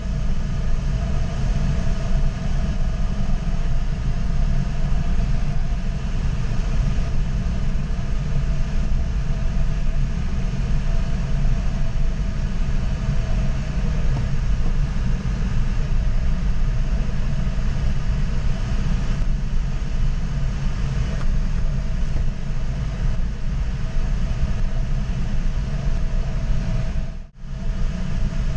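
Steady rumble and rush of airflow over an ASK 21 glider's canopy and airframe, heard inside the closed cockpit, with faint steady whistling tones above it. The sound drops out briefly about a second before the end.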